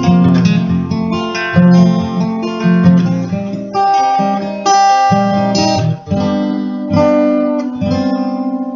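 Acoustic guitar with a capo, chords strummed slowly about once a second, the last chord left ringing and fading near the end.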